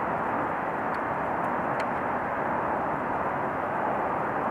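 Two-stroke kart engines idling while the karts wait stationary in a queue, a steady, even drone with no revving.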